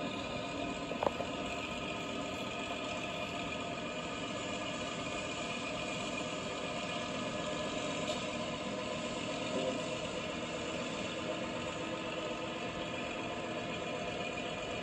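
Small diesel switcher locomotive engine running steadily as the locomotive moves slowly past, with one brief click about a second in.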